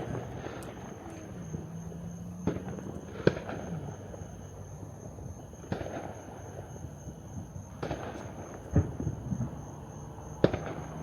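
Fireworks going off: about six separate sharp bangs a second or more apart, some followed by brief crackling, the loudest two near the end.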